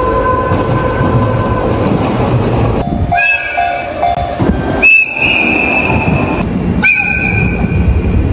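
Japanese train horns in a run of separate clips cut one after another: about four steady horn blasts, each one to two seconds long, over the low rumble of trains.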